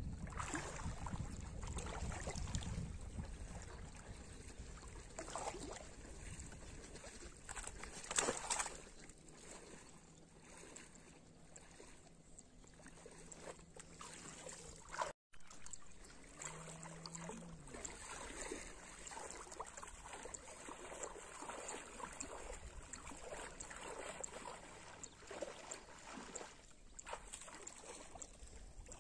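Water splashing and sloshing as a person wades through shallow floodwater and pushes a bamboo polo fish trap down into it, with irregular small splashes and one louder splash about eight seconds in.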